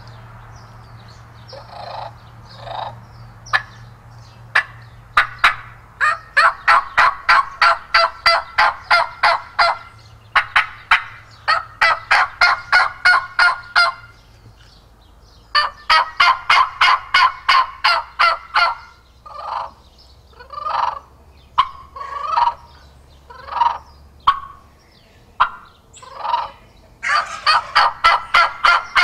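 Turkey calling on a mouth call: long fast runs of evenly spaced yelps, about four notes a second, with slower single notes in between. Near the end the calling is blown through a Corian-and-walnut amplifier tube meant to make it crisper and louder.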